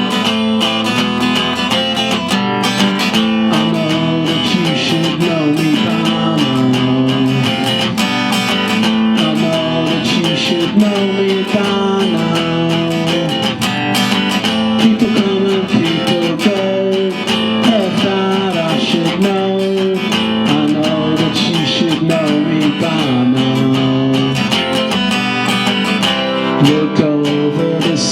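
Acoustic guitar played alone in an instrumental passage, strummed and picked, with some notes sliding in pitch.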